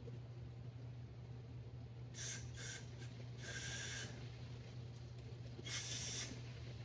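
Aerosol carburetor cleaner sprayed in four short hissing bursts onto a disassembled snow blower carburetor to flush out dirt. Two quick bursts come about two seconds in, a longer one follows, and a last one comes near the end.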